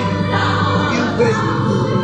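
Live stage-musical music: orchestra playing under a chorus of voices singing.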